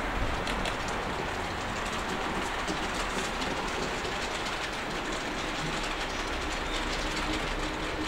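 Model railway steam locomotive and coaches running along the track: a steady rolling rumble of wheels on rail with faint clicks.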